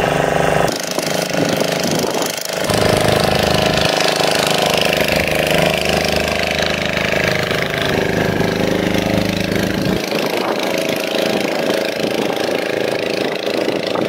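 An engine running steadily, with a deep, even hum whose sound changes abruptly several times.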